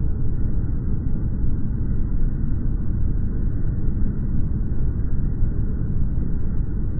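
Outdoor ambient sound from a smartphone, played back at a tenth of its original speed: a deep, steady, muffled noise with nothing in the upper range and no distinct events.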